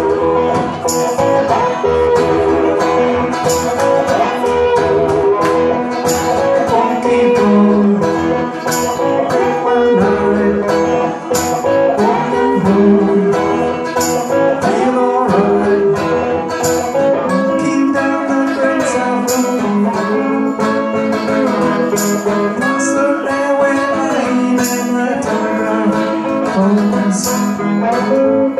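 Live band playing amplified music on guitars, bass guitar and drum kit, with a cymbal crash about every two and a half seconds.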